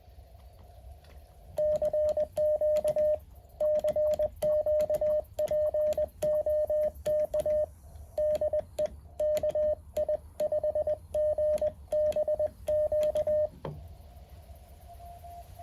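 Morse code from a Mountain Topper 4B QRP transceiver: a single steady tone keyed on and off in dots and dashes, loud, starting about one and a half seconds in and stopping about two seconds before the end. Near the end a fainter, slightly higher-pitched Morse signal comes in.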